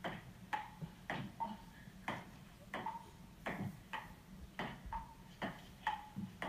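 Table tennis ball in play, clicking sharply off paddle and table about twice a second, each click with a short bright ring.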